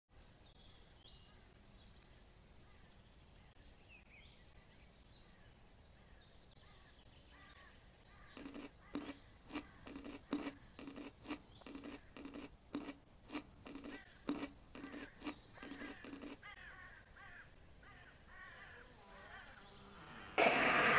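Footsteps crunching in snow, about two steps a second for some eight seconds, over faint outdoor ambience with high bird chirps. Near the end a sudden, much louder sound with a falling pitch cuts in.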